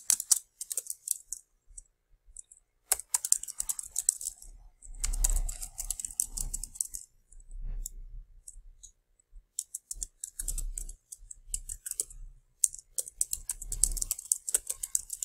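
Computer keyboard typing, quick keystrokes coming in several runs with short pauses between.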